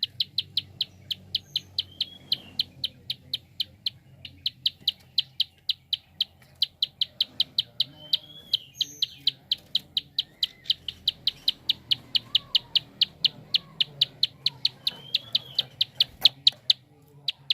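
Prinia (prenjak) giving its fast clicking call: a rapid train of sharp, high ticks at about five a second, breaking off briefly twice. A few other birds chirp faintly behind it.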